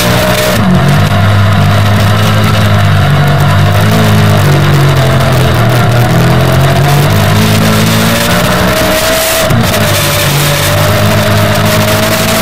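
500 cc kart cross engine running hard under racing load, its pitch rising and falling with throttle and gear changes, with a brief lift about nine and a half seconds in. Heard from inside the cage, mixed with wind and track noise.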